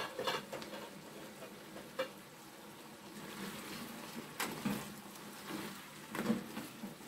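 Palm-oil stew with crab and beef bubbling and sizzling in a pan. A spatula knocks against the pan a few times, and near the middle it starts stirring through the pieces with soft scrapes and clacks.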